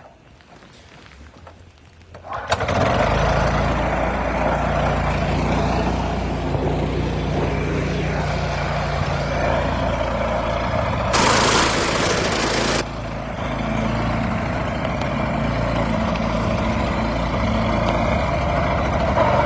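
Gasoline snowblower engine starting about two seconds in and then running steadily. A loud rushing hiss cuts in for about a second and a half near the middle.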